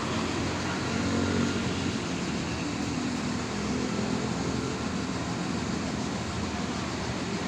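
Intercity bus engine, freshly overhauled, running steadily at idle, with traffic noise around it.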